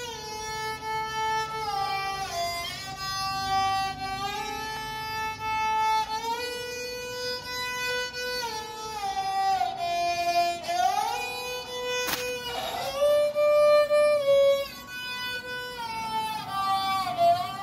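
Solo melody bowed on a fretted Indian bowed lute of the esraj/dilruba family. Long held notes are joined by smooth slides up and down between pitches. There is a single sharp click about twelve seconds in.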